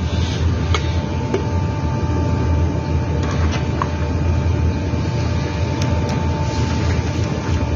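A steady, loud machine hum with a constant high tone above it, and a few light metallic clicks as scooter CVT pulley parts are handled and fitted onto the shaft.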